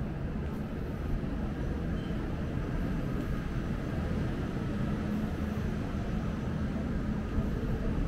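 Steady low rumble of city background noise, with a faint steady hum under it and no distinct events.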